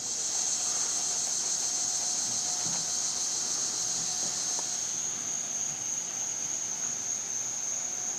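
Steady high-pitched insect chorus, a continuous shrill drone with no break.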